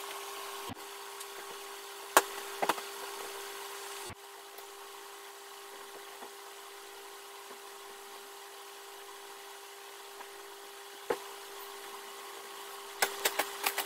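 A steady mechanical hum runs throughout while bedding is handled: a few soft knocks and thumps as pillows and sheets are placed, one sharp knock about two seconds in, and a quick run of knocks near the end.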